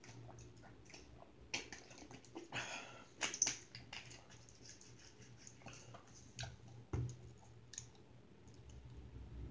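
Quiet eating sounds: chewing, with scattered small clicks and taps of a fork against the bowl and a few short louder rustles.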